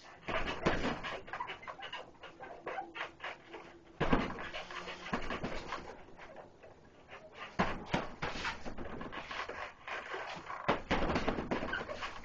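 Punches landing on a hanging heavy bag in four flurries spaced a few seconds apart, with hard breathing between.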